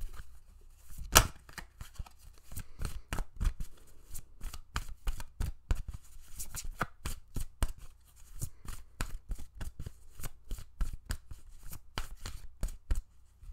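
A deck of oracle cards being shuffled by hand: a quick run of papery card snaps, about four a second, the loudest about a second in, stopping just before the end.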